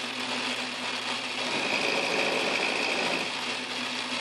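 Metal lathe running with a cutter in its chuck milling a metal bar clamped in a vise on the cross slide: a steady machine hum, with a higher cutting sound coming in about a second and a half in.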